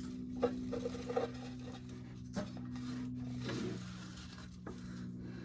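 A few light clicks and patters of shelled corn kernels dropping into a metal can, over a steady low hum.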